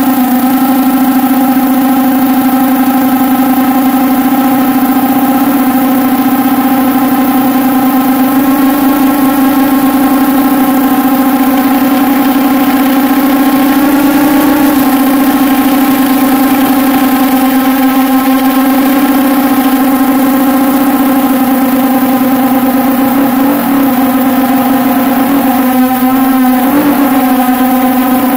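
Quadcopter's electric motors and propellers running with a loud, steady drone, heard up close from a phone carried on the drone. The pitch wavers a few times near the end as the motor speed changes.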